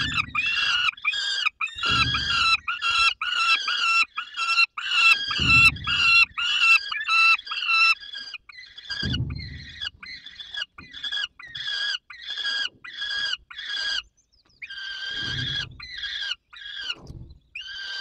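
Young falcons begging at the nest during a prey delivery: harsh, repeated calls about four a second, pausing briefly near the end, with a few low thumps underneath.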